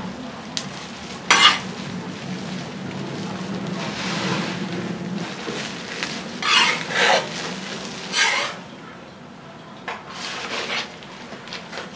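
A metal spatula scraping and knocking on a flat round griddle as a jianbing is folded and cut: a few short scrapes over a low steady hum.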